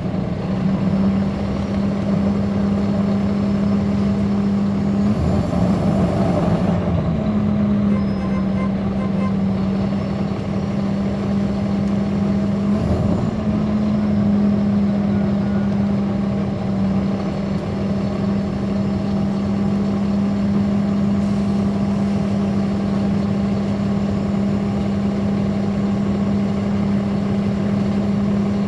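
Caterpillar C13 ACERT diesel engine of a NABI 416.15 transit bus heard from on board, running loud with a steady low drone. The drone wavers and dips for a moment about six seconds in and again briefly around thirteen seconds.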